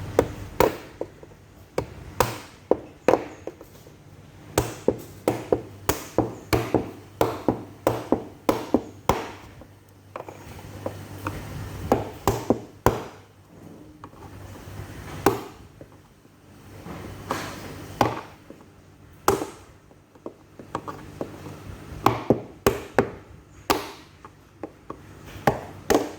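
Hammer striking a chisel to cut through a stainless steel washing machine drum. Repeated sharp strikes, often about two a second, come in runs separated by short pauses.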